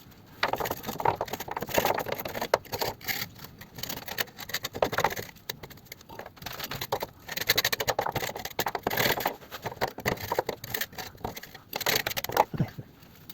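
A small hand scraper scraping oily grime off the gearbox rear-mount area under a car, in short irregular strokes with scratchy clicks.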